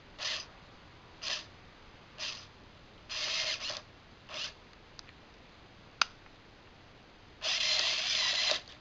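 Small servo motor whirring in short runs as it turns the knob of an air pressure regulator to set the cannon's piston pressure: five brief runs about a second apart, a sharp click, then one longer run of just over a second near the end.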